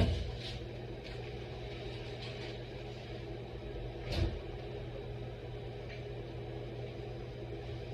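Microwave oven running, a steady low electrical hum, with a single short knock about four seconds in.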